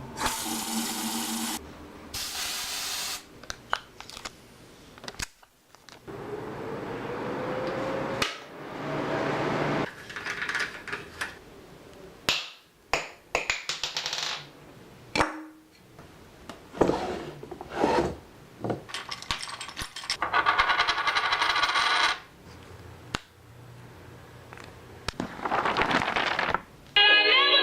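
A string of short everyday household sounds one after another: clicks, knocks, rubbing and clinking, with one rising tone about six to nine seconds in.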